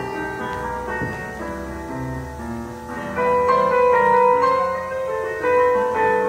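Piano music accompanying ballet barre exercises: slow, held notes, growing louder about three seconds in.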